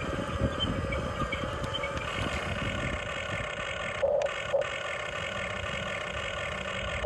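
Huina RC excavator's small electric motors whining steadily as the boom lifts and the upper body swings, with two brief louder blips about four seconds in.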